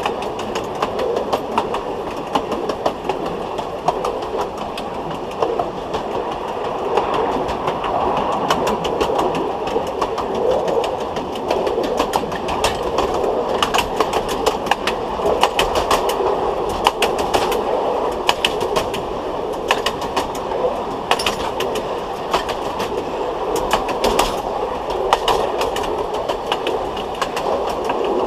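Wheels of a 760 mm narrow-gauge passenger coach rolling on jointed track, heard from directly beneath the coach: a steady rumble with sharp clicks as the wheels cross the rail joints, the clicks coming thicker from about halfway through.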